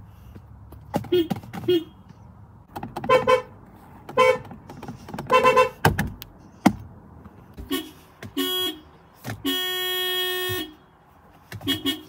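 Volkswagen car horns from several different cars sounding in a series of short toots: a lower pair, then three higher beeps, then two more toots and one long blast of about a second near the end. Short clicks fall between them.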